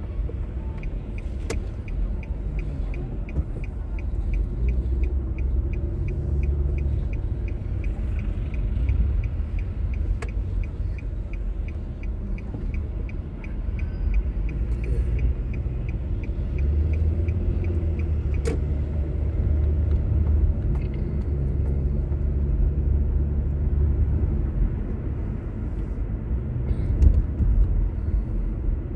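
Car cabin sound: engine and road rumble from inside a car in town traffic. For the first two-thirds, a turn-signal indicator ticks evenly at about three ticks a second, then stops.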